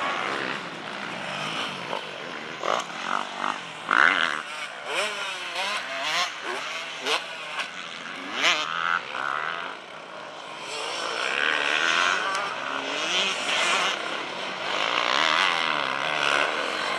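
Motocross bikes riding a dirt track, engines revving up and down with the throttle and gear changes. There are sharp loud peaks about 4, 6 and 8 seconds in, then a denser, steadier spell of engine noise from about halfway.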